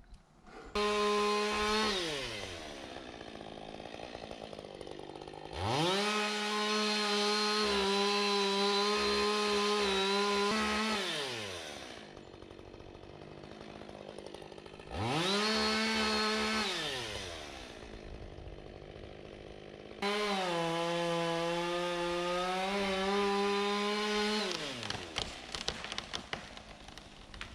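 Two-stroke chainsaw cutting into a tree in four long bursts at full throttle. Each burst rises quickly to a high, steady whine and falls back to idle between cuts. A few faint cracks come near the end.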